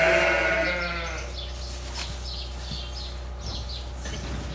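A sheep bleating: one long, wavering bleat that tails off about a second in.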